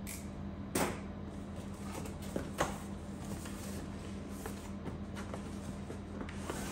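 Cardboard shipping box being opened by hand: its tape and flaps are worked loose with a few sharp scrapes and knocks, the loudest about a second in and twice more near the middle, over a steady low hum.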